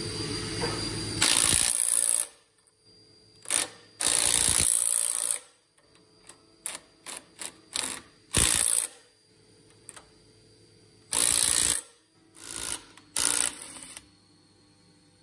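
Impact gun running nuts down on two studs in short bursts, about seven of them with brief ticks in between, jacking a toothed spindle pulley up off its shaft a little at a time.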